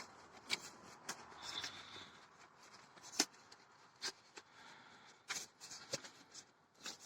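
Replacement blend door actuator being taken out of its packaging by hand: faint rustling with scattered soft clicks and taps.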